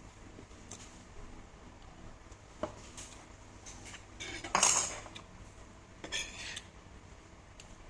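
Kitchen utensils clinking and clattering against dishes and pots: a few separate clatters, the loudest about four and a half seconds in.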